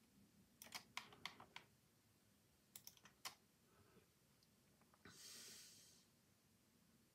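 Faint clicking at a computer: a quick run of clicks about half a second in, another short run around three seconds, then a soft hiss lasting about a second.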